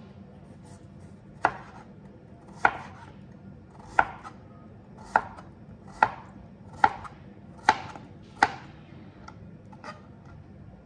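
Chef's knife slicing a carrot into thick rounds on a plastic cutting board: about eight sharp knocks of the blade striking the board, roughly one a second, then a couple of fainter ones near the end.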